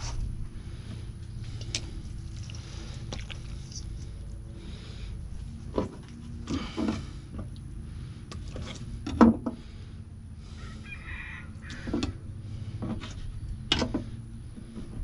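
Knife cutting up snapping turtle meat on a plastic cutting board: scattered knocks and short scrapes, the loudest a little past the middle, over a steady low rumble.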